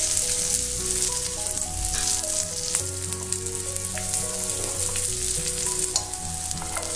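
Mochai (field beans) sizzling in hot oil in a nonstick pan, with light clicks and scrapes as powder and shredded coconut go in and a wooden spatula stirs. Soft background music with a slow stepping tune plays under it.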